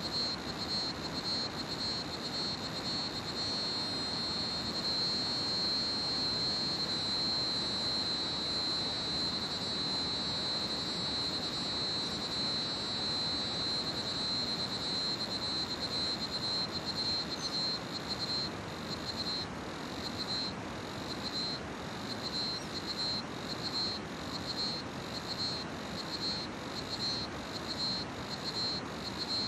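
Crickets calling in a high, buzzing trill that runs unbroken, then about two-thirds of the way through breaks into regular pulses, roughly one or two a second. Underneath is the steady rush of a river.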